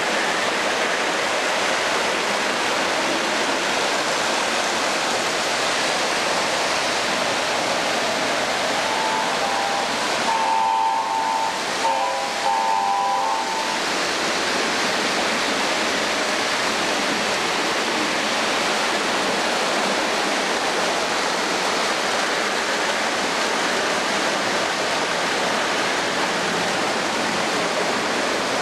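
O gauge electric toy train running on the layout's metal track, a steady hissing rumble of wheels and motor. About ten seconds in, a few short horn blasts sound one after another.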